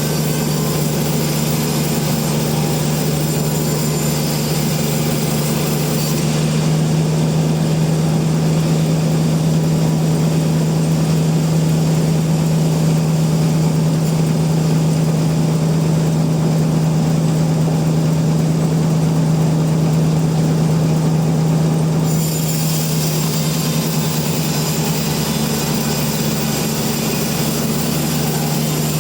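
Sawmill machinery running steadily with a constant low hum. From about six seconds to about twenty-two seconds the higher hiss drops away and the running gets slightly louder.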